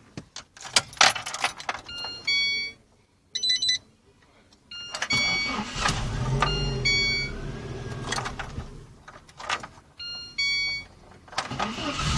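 Car ignition key clicks and dashboard warning chimes, then the engine starts through the repaired starter solenoid and runs. It cuts out near ten seconds, more chimes sound, and the engine starts and runs again near the end.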